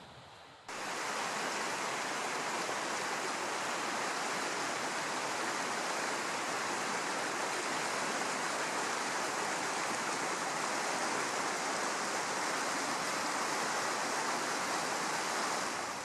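Fast mountain river rushing over rocks, a steady white-water rush that cuts in suddenly about a second in and holds even throughout.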